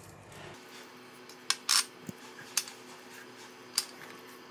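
Light clinks and taps on a stainless steel tray as hands salt and handle a whole sea bass in it, four short sharp knocks spread over the few seconds, over a faint steady hum.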